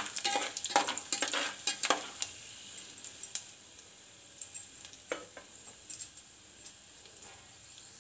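Whole spices (bay leaves, cinnamon, cloves) sizzling in hot mustard oil in a metal pot. For the first two seconds a spatula stirs and clicks against the pot, then the oil sizzles more steadily and quietly with the odd click.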